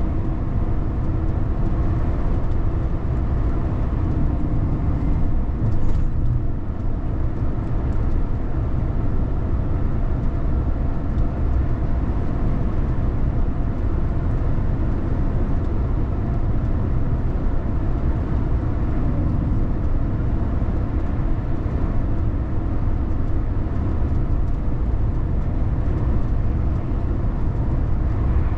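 A vehicle driving along a road: a steady low rumble of tyre and engine noise that holds an even level throughout.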